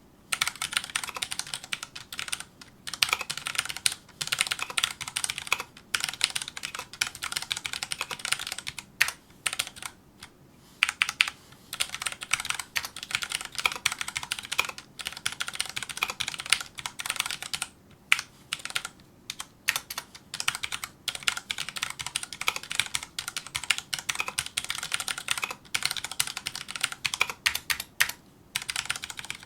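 Fast touch-typing on a Filco Majestouch2 mechanical keyboard with Cherry MX Brown switches: rapid runs of key clacks broken by short pauses between words and lines.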